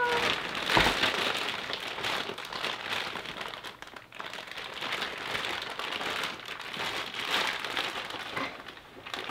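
Plastic toy packaging crinkling as it is handled and opened, with a low knock a little under a second in.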